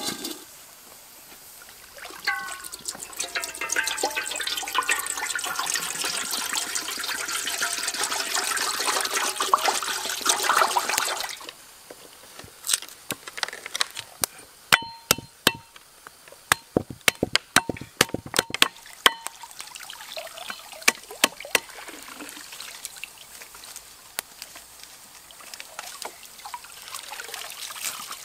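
Water pouring into a wok for several seconds. About twelve seconds in, a cleaver starts chopping on a wooden cutting board in a quick run of sharp knocks, which thins out to a few scattered knocks.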